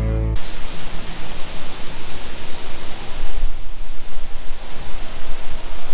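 Wind buffeting an outdoor camera microphone: a loud rushing noise with a low rumble, rising and falling in gusts.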